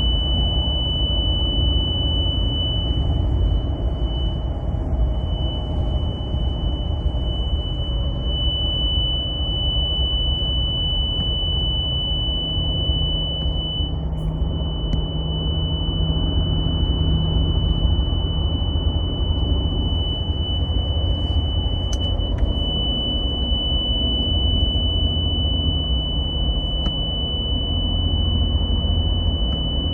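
A continuous, piercing high-pitched tone from a 2023 Toyota Tundra Platinum, sounding unbroken at one steady pitch over the low rumble of the truck driving at highway speed. It is a fault sound that came on out of nowhere and stops only when the truck is switched off.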